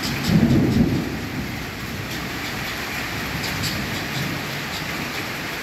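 Rain falling steadily, with a short low rumble of distant thunder in the first second.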